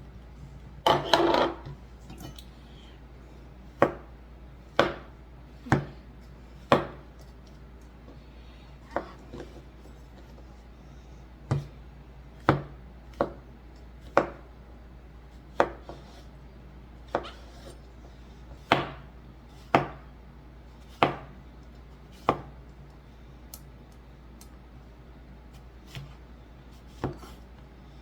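Knife slicing mushrooms on a cutting board: about twenty separate knocks of the blade on the board, roughly one a second and unevenly spaced.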